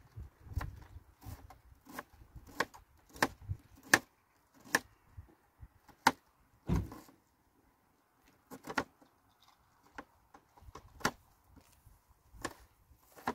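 Kitchen knife chopping onion on a cutting board: a series of sharp, irregular knocks about one or two a second, with a couple of short pauses.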